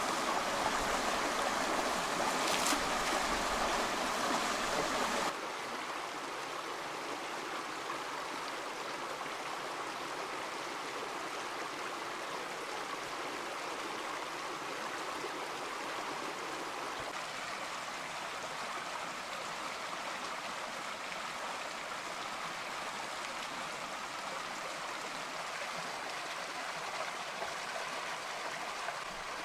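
Shallow rocky stream running over stones, a steady rush of water. It is louder for the first five seconds, with one short click, then drops suddenly to a softer, even flow.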